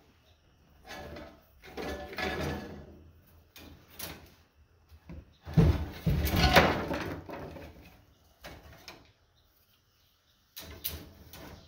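Copper windings being pulled and scraped out of a burnt armature's iron core by hand: irregular metallic scrapes and rattles of loose wire, loudest a little past halfway.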